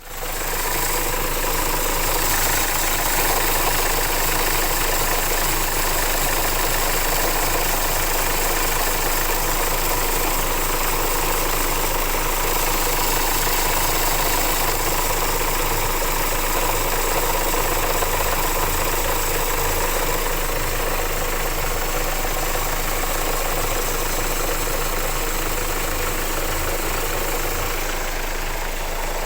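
Hyundai Santa Fe 2.2 diesel engine running steadily at idle, with a knocking, rattling noise from a failing crankshaft pulley.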